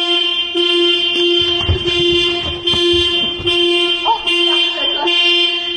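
A 2020 Toyota Corolla's alarm sounding through its horn: loud, steady-pitched honks repeating about once a second, fading out near the end.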